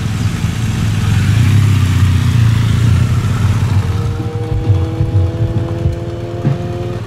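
Several large adventure-touring motorcycles riding past, the engine sound swelling to its loudest about two seconds in and then easing. From about four seconds, background music with long held notes comes in over the motorcycles' engines running at low speed.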